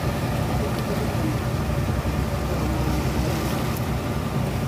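A wooden fishing boat's engine running steadily under way, a constant low drone, with the rush of water along the hull.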